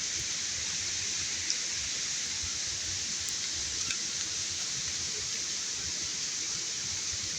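Steady rush of flowing water, an even hiss that holds unchanged.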